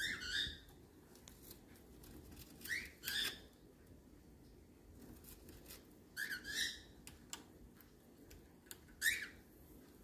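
Cockatiel giving short whistled chirps in four bursts a few seconds apart, some in quick pairs, with faint clicks between them.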